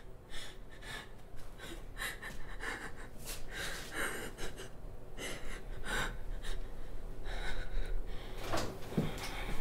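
A person breathing heavily in short, uneven breaths, over a faint steady low hum.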